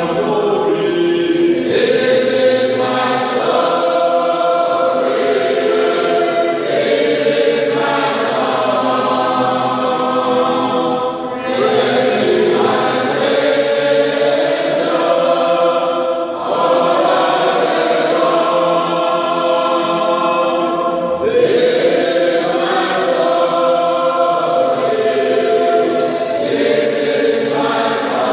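A group of pilgrims singing a hymn together as a choir in a church, in long held phrases with short breaths between them.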